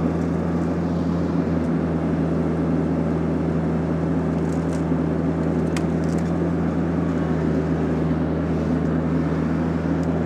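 TYM T474 compact tractor's diesel engine running at a steady speed, with a few faint clicks about halfway through.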